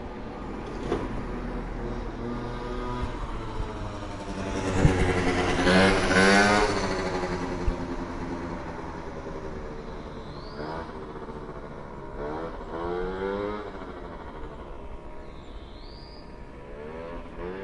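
A moped's small engine passing by. It builds to its loudest about six seconds in, and its pitch falls as it goes past. Later, engine sound with a climbing pitch is heard again around twelve to fourteen seconds in, and once more near the end.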